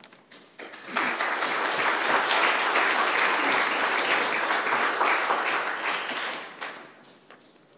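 Audience applauding. The clapping starts about a second in and dies away near the end.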